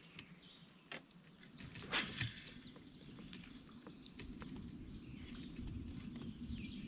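Faint riverside ambience: a steady high insect drone and a sharp click about two seconds in, then from about four seconds a fishing reel being cranked as a lure is retrieved, with a few descending bird calls near the end.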